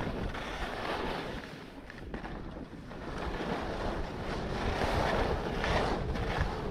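Wind rushing over the microphone of a camera carried by a skier, with the scraping hiss of skis on packed snow swelling and fading through the turns, loudest past the middle.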